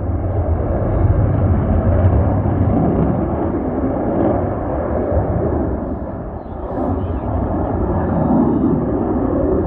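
F-35's turbofan jet engine, a loud steady rumble as the jet flies its display, dipping briefly about six seconds in and then swelling again.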